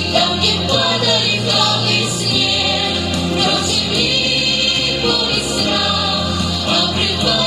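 A vocal group singing together in harmony over musical accompaniment with held bass notes that change every second or two.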